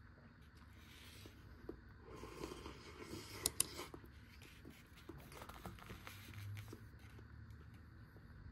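Quiet eating and food-container handling noises: light scrapes and small clicks, with two sharp clicks close together about three and a half seconds in.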